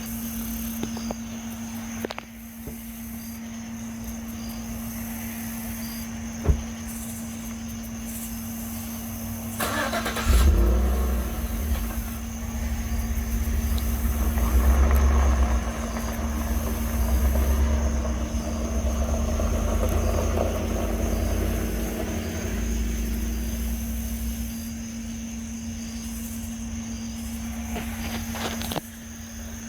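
A steady low hum with a fainter high whine above it, joined about ten seconds in by a deep rumble that swells and then eases off; the hum and whine stop shortly before the end. This is the unexplained 'nging' ringing sound recorded outdoors.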